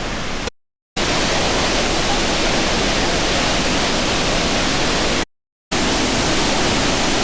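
Steady roar of Iguazú Falls' water, a dense rushing noise, cut off twice for a moment: about half a second in and again around five seconds in.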